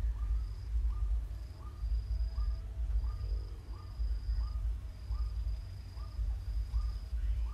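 Outdoor insect and animal calls: a high, steady trill that breaks into stretches, and a short call repeated about one and a half times a second, over a low rumble.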